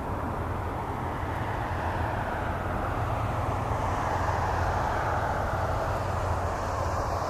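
Distant jet engine noise from an Airbus A319 with IAE V2500 turbofans as it touches down and rolls out on the runway: a steady rush over a low hum that swells and grows brighter about halfway through.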